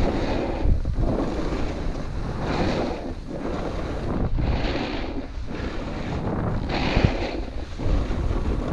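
Snowboard running down a groomed, hard-packed slope: the board's edges scraping over the snow in repeated surges, under wind noise on the action camera's microphone.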